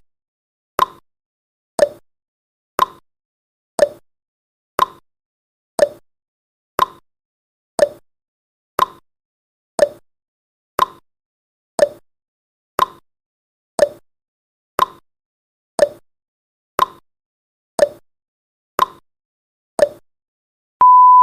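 Countdown timer tick sound effect: a short, sharp tick once a second, evenly spaced. Near the end a steady, high-pitched beep begins as the countdown reaches zero.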